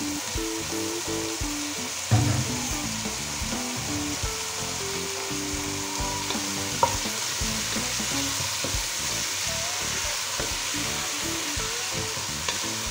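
Chicken masala gravy sizzling in a nonstick pan, freshly wetted with a little water, while a spatula stirs it. A thump about two seconds in.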